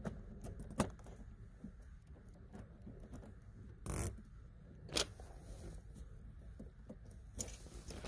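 Channel-lock pliers being worked off the gear shift boot's clamp: faint metal clicks and handling scrapes, with a louder scrape about four seconds in and a sharp click about a second later.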